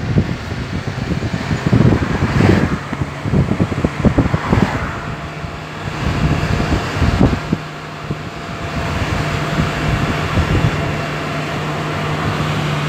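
A car in motion, with road and wind noise heard from inside. Irregular gusts buffet the microphone through the first half. About halfway through a steady low engine hum takes over and the noise evens out.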